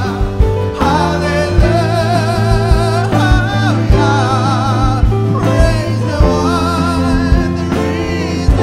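Worship band music: a singer's voice over guitar, bass and a steady drum beat.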